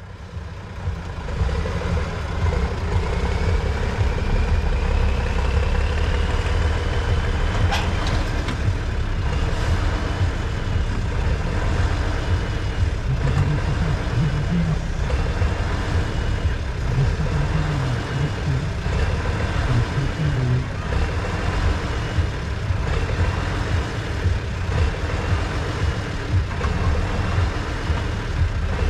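Heavy off-road truck engine running steadily under load while an overturned trial truck is pulled back onto its wheels. Over it a high whine rises slowly for several seconds, then wavers up and down about once a second. There is one sharp knock about eight seconds in.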